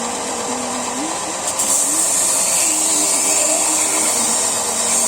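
Electric knife grinder running steadily; about a second and a half in, a blade meets the abrasive and a high grinding hiss sets in and keeps on.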